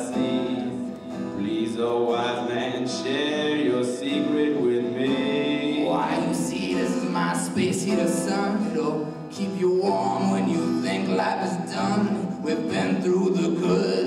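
Acoustic guitar played as accompaniment to male singing, a live song performance.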